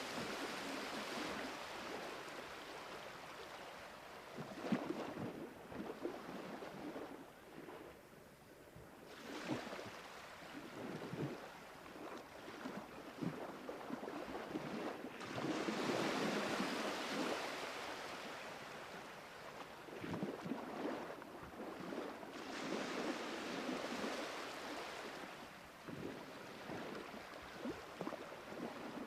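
Sea waves surging and washing, swelling and ebbing in slow cycles every several seconds, with small splashes between.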